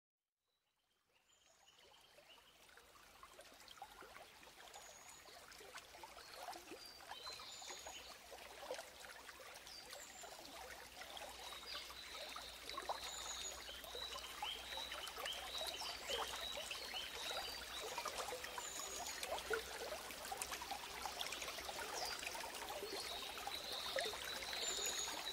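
Trickling, dripping water with many small clicks and frequent short, high chirping calls, fading in gradually from silence and growing louder throughout.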